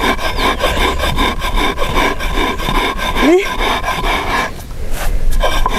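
Toasted cañihua grain being ground on an Andean stone batán: the curved upper stone is rocked back and forth over the flat grinding stone, scraping stone on stone and grain in quick repeated strokes. The strokes pause briefly near the end, then start again.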